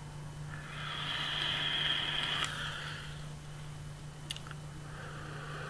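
Vape hit on a Troll V2 rebuildable dripping atomizer: the coil sizzling as air is drawn through it for about two and a half seconds, followed a couple of seconds later by a softer breathy exhale.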